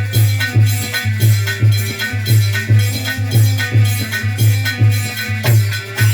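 Instrumental interlude of North Indian folk music: a steady drum beat about twice a second under rattling, jingling percussion and a held melody line.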